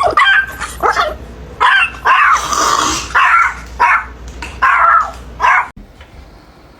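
A dog barking and yipping in a string of about eight short, loud calls that stop abruptly near the end.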